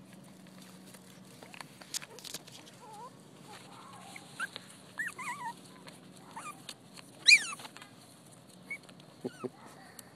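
Chihuahua puppies whimpering in short, high, wavering squeaks, with one louder squeal about seven seconds in, as they play at a pair of leather boots. Small clicks and rustles run underneath.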